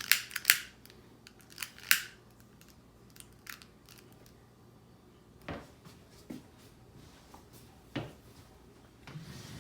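A series of sharp clicks in the first two seconds and another a little later, followed by a few duller knocks, like small objects being handled.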